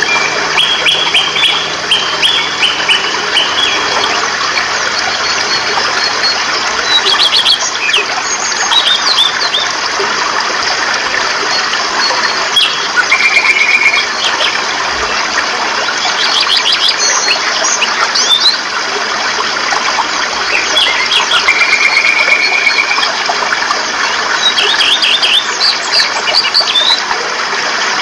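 Rushing mountain stream tumbling over boulders, a steady hiss of water, with wild birds chirping and calling over it throughout. The birds give short runs of quick repeated chirps, and twice a single held note lasting a second or two.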